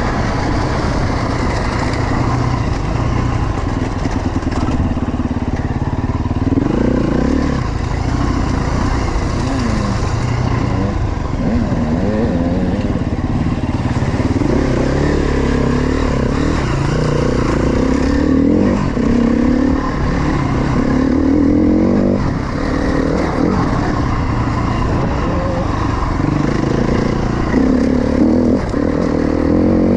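KTM 350 XC-F's four-stroke single-cylinder dirt bike engine heard from the rider's seat, revs rising and falling again and again as the bike is ridden along a rough dirt trail.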